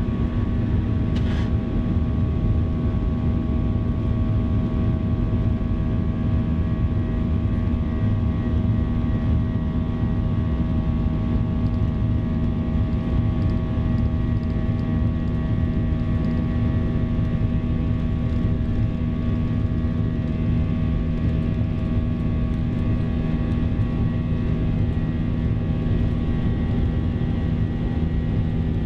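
Cabin noise of a Boeing 737-800 taxiing: a steady rumble with the even hum and whine of its CFM56-7B jet engines at low taxi power.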